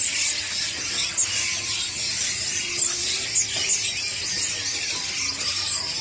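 A dense, continuous high-pitched chatter of many caged songbirds chirping and twittering together, with sharp single calls standing out several times.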